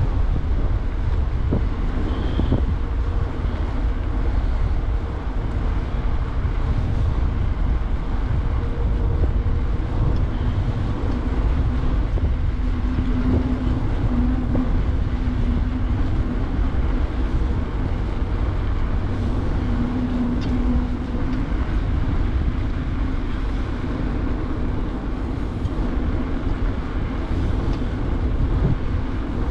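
Wind buffeting the microphone and tyre noise from a bicycle ridden on a city street: a steady low rumble. A faint hum comes and goes midway.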